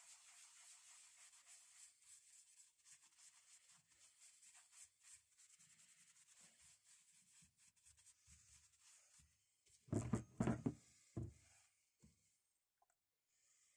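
Faint cloth rubbing on metal, a rag working oil over a restored hammer, then a few louder handling knocks about ten seconds in.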